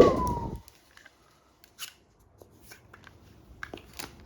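Toy gun's electronic firing effect: a loud noisy blast with a falling whistle that dies away within the first second. Then a few small plastic clicks from handling the gun.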